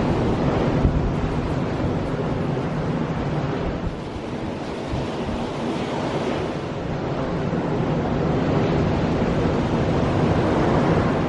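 Ocean surf washing on a beach, with strong wind buffeting the microphone. The rush eases about four seconds in and builds again later.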